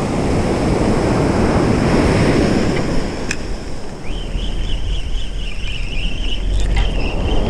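Surf and wind buffeting the microphone. About four seconds in, a Daiwa BG Saltist spinning reel is cranked fast to retrieve a topwater lure, and its gears give a steady, wavering high whine over a low rumble.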